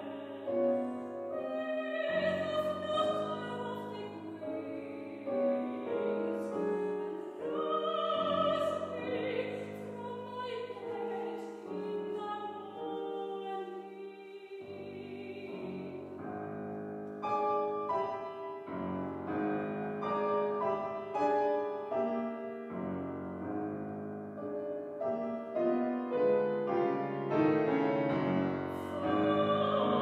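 Soprano singing a classical art song with grand piano accompaniment. The voice drops out around the middle while the piano plays on alone with separate struck chords, and it returns near the end.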